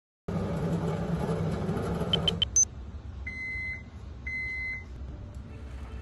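A microwave oven running with a steady hum, which stops about two and a half seconds in with a few short high chirps and a sharp tick. Then come two half-second beeps about a second apart, signalling that the heating cycle is finished.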